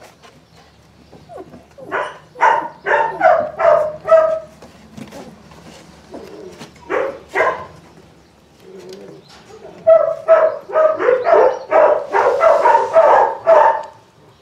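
Three-week-old Belgian Malinois puppies crying in short, high calls. The calls come in runs: a quick string of about five some two seconds in, two more around seven seconds, then a rapid string of about a dozen from about ten seconds to near the end.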